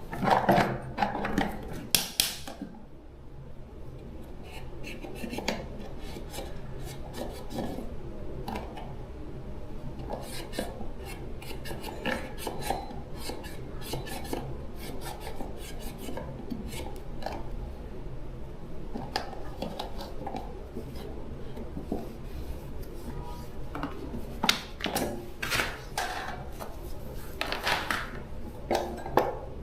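Metal parts and hand tools clinking, knocking and scraping in irregular handwork, with louder clatters near the start and near the end.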